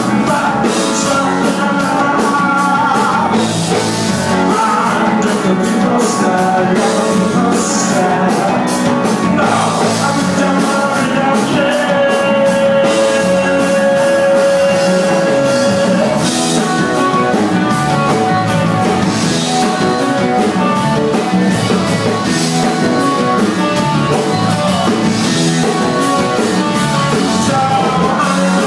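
Live rock band playing: a male singer over electric guitars, bass and drum kit with crashing cymbals, with one long held note about halfway through.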